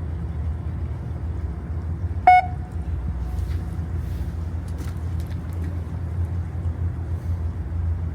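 Fishing boat's engine running with a steady low rumble, and a single short high beep about two seconds in.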